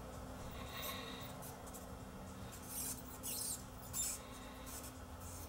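Soldering iron tip working a solder joint on a small alarm-sensor circuit board: faint scratchy sounds in a few short bursts over a low steady hum, while the joint is heated to free a switch.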